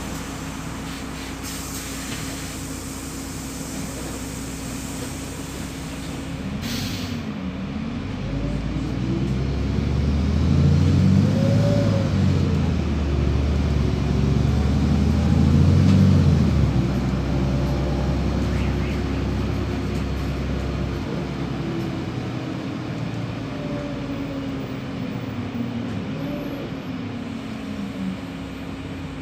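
Cabin sound of a LiAZ 5292.67 city bus on the move: engine and road noise with a steady hum. The engine grows louder in the middle, its note rising and falling as the bus pulls away, then eases back.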